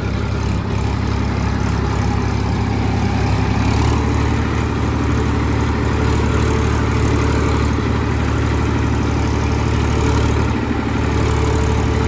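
Massey Ferguson 241 tractor's three-cylinder diesel engine running steadily, its note shifting slightly about four seconds in.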